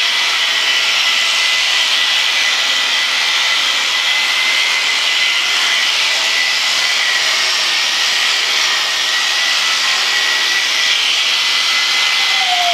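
Electric sheep shears running with a steady, even, high whine while shearing a ram's fleece.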